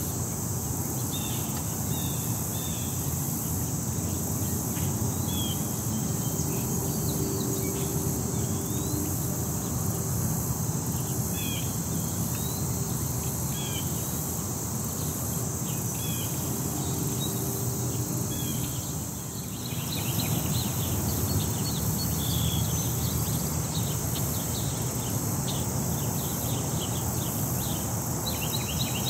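Outdoor park ambience by a city pond: a steady high drone of insects such as crickets, with scattered short bird chirps, over a low steady rumble of city traffic. The sound dips briefly about two-thirds of the way through, then carries on as before.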